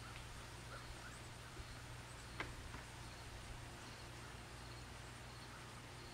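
Quiet outdoor background with a steady low hum and a few faint, short chirps, and one brief click about two and a half seconds in.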